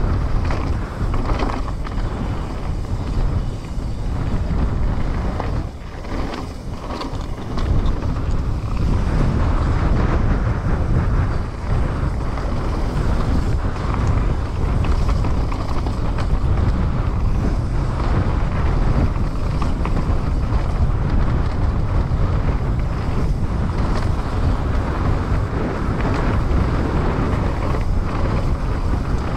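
Trek Slash 9.9 enduro mountain bike ridden fast downhill: tyres rolling over rough trail and the frame, chain and suspension rattling over bumps, with wind buffeting the action camera's microphone. Briefly quieter about six seconds in.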